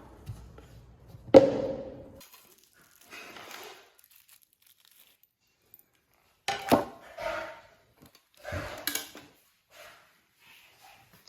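Packaging and parts being handled: crinkling and rustling, with a sharp knock about a second in and a cluster of knocks and rustles a little past the middle.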